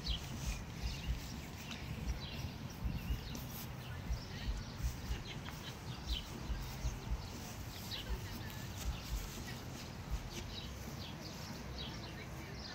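Small birds chirping: many short, high notes falling in pitch, scattered irregularly, over a low rumble with frequent low thumps.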